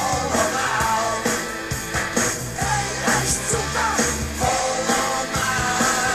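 Rock music with singing over a steady drum beat.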